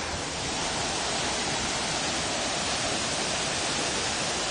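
Waterfall pouring into its pool: a steady rush of falling and splashing water, growing a little louder over the first second.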